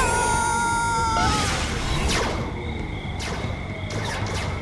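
Cartoon action sound effects over background score. A tone glides up and is held for about a second, then a run of quick whooshes follows.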